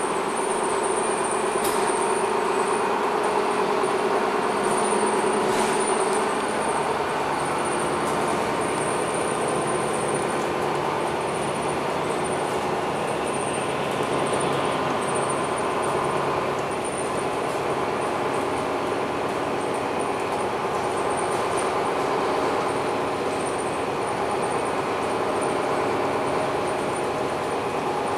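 Interior running noise of a MAN NL323F A22 single-deck diesel city bus travelling slowly: a steady engine and drivetrain hum mixed with road noise and cabin rattles. A droning tone fades out about six seconds in.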